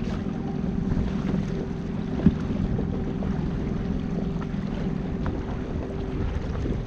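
Small outboard motor running steadily, pushing an inflatable dinghy along at low speed, with wind on the microphone. A single sharp knock about two seconds in.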